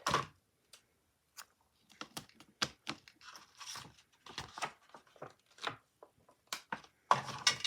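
Heart stickers being peeled off their sheet and pressed onto a cardboard box: irregular crinkling, crackles and light taps of paper and card.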